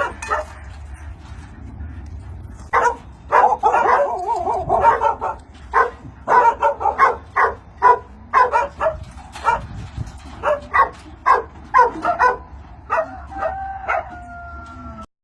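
Dogs barking in a run of short, sharp barks, about one to two a second, followed by a drawn-out, slightly falling whine near the end.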